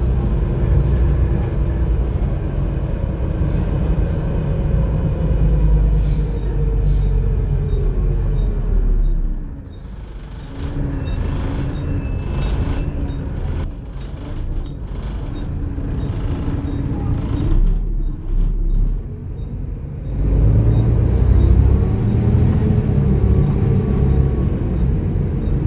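Volvo B7TL bus's six-cylinder diesel heard from inside the bus: the engine note falls as it slows, drops to a quieter idle about ten seconds in, then rises again as the bus pulls away about twenty seconds in.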